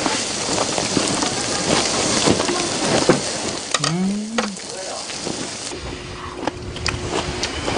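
Wild boar meat sizzling on a grill: a steady crackling hiss that cuts off abruptly about two-thirds of the way in. A short hummed voice rises and falls near the middle.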